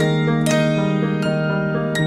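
Background music: single ringing notes picked out one after another over a held low tone.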